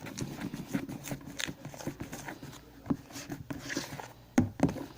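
A spoon stirring thickening slime in a bowl, making irregular soft clicks and taps against the bowl.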